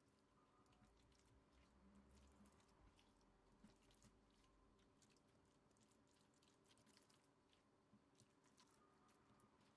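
Very faint, soft squishing and crackling of a moist grated-apple and walnut filling being pressed and spread over sheet dough with the fingers and a spoon, in many small irregular clicks.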